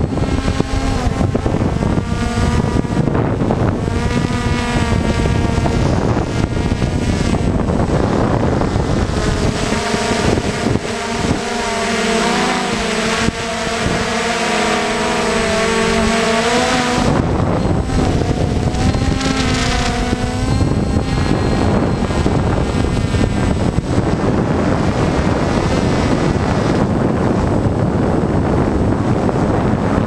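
DJI Phantom 1 quadcopter's electric motors and propellers buzzing in flight, heard from the camera on the drone, with wind rushing over the microphone. The buzz wavers up and down in pitch as the throttle changes, most clearly about midway through.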